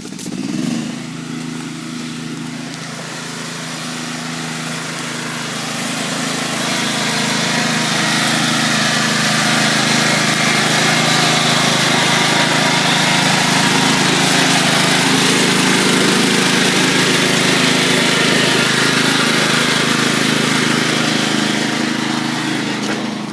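Riding lawn mower's small engine catching and running steadily at full throttle. It gets louder from about six seconds in and eases off near the end.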